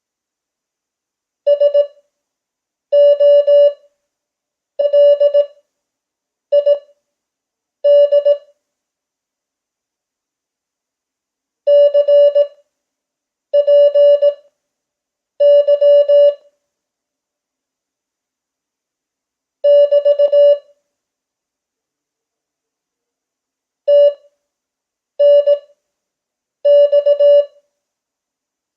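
Morse code (CW) practice tone at 5 words per minute Farnsworth speed: single-pitch beeps forming letters sent quickly, each letter followed by a pause of about a second, with longer pauses of several seconds between words.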